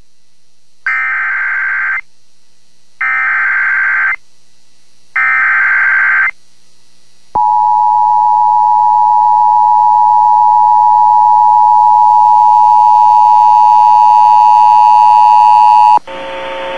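Emergency Alert System signal on a broadcast radio station, announcing a severe thunderstorm warning. It opens with three one-second bursts of SAME header data, a harsh digital screech with short gaps between them. Then comes the two-tone attention signal (853 and 960 Hz), held steady for about eight and a half seconds before it cuts off into hissy broadcast audio.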